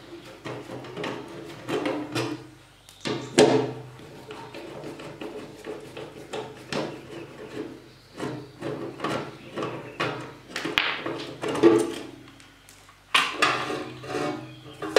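A screwdriver backing self-tapping screws out of a sheet-metal mounting plate, in a run of short, irregular metal scrapes and clicks. About 13 s in comes a louder, longer stretch of scraping as the plate is worked free.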